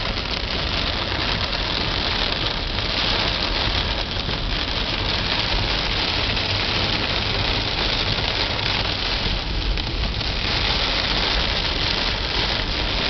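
Steady rain, an even hiss that holds unbroken throughout.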